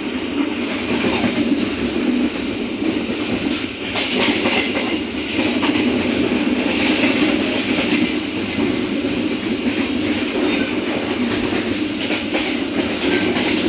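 Running noise of a passenger train heard from on board while it travels at speed, a steady rumble with scattered wheel clicks over the rail joints.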